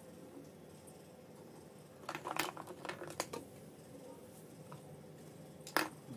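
Plastic toy kitchen pieces being handled and set down on a tabletop: a quick cluster of light clicks and knocks about two seconds in, and one sharper knock near the end.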